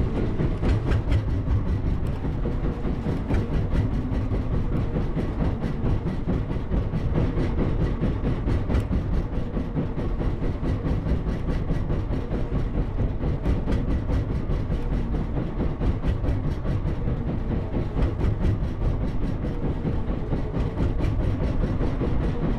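Small fishing boat's engine running steadily with a fast, even chugging.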